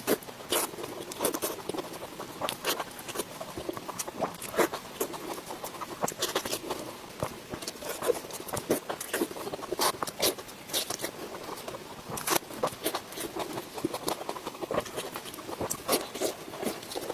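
Close-miked eating sounds: chewing and mouth noises made up of irregular sharp clicks and crackles, several a second.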